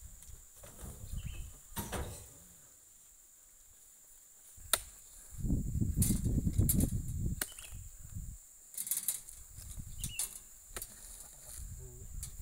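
Scattered knocks and thuds of oil palm fruit bunches being thrown onto a pickup truck's cargo bed and dragged with a hooked pole, the sharpest knock just before five seconds in and a longer low rumbling thump around six to seven seconds. A steady high-pitched insect drone runs underneath.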